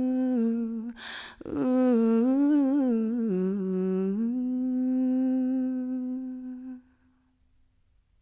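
A woman's solo voice singing a wordless, humming "ooh" line, the song's closing phrase. She takes a breath about a second in and ends on a long held note that stops about seven seconds in.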